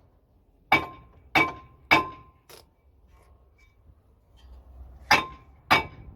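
Hammer blows on a steel brake disc, each a sharp metallic strike with a brief ring, to free the disc from the hub. There are three hard blows and a lighter fourth in quick succession, a pause, then two more near the end.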